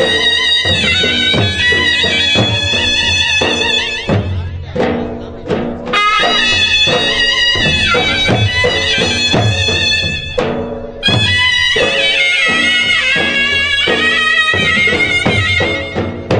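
Loud wedding dance music: a reedy wind-instrument melody with wavering pitch over steady drum beats, thinning out briefly twice.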